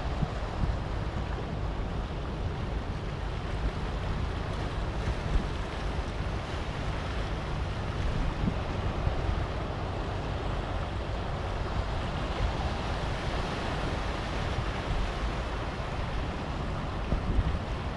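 Sea waves breaking and washing over a rocky shore, a steady rushing surf, with wind buffeting the microphone.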